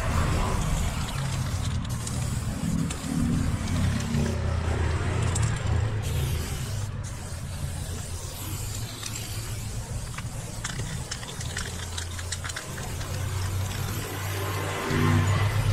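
Aerosol spray paint can hissing in spurts as paint is sprayed onto a wall, over a steady low rumble.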